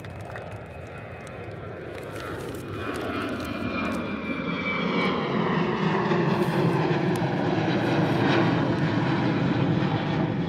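Airplane flying overhead: its engine noise swells over the first several seconds and stays loud, with a whine sliding down in pitch as it passes.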